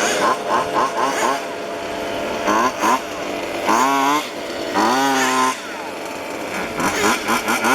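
Small two-stroke petrol engines of 1:5 scale RC cars racing, several at once, revving up and backing off over and over with rising and falling pitch. Near the start one engine blips rapidly on and off.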